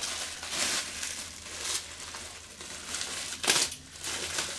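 Plastic packaging crinkling and rustling as it is handled, in irregular bursts, the sharpest about three and a half seconds in.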